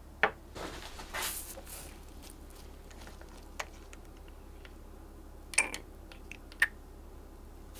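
Small handling sounds from a small amber glass dropper bottle being opened: a few sharp clicks and taps of the plastic dropper cap and glass, with a short rustle about a second in.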